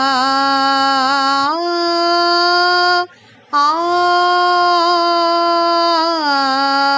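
A solo voice singing Carnatic akaaram, holding an open 'aa' vowel through notes of the Mayamalavagowla scale at first speed, one long note per beat. A held note steps up about a second and a half in, breaks for a short breath near the middle, then returns with small ornamental wavers before stepping back down near the end.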